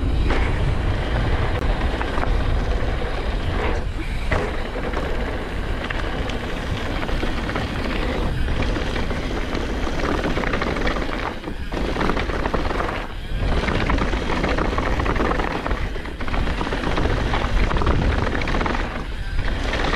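Wind buffeting the microphone of a handlebar-mounted camera and tyres rolling over loose gravel as a downhill mountain bike descends a dirt fire road at speed. It is a steady rushing noise heavy in the low end that drops briefly every few seconds.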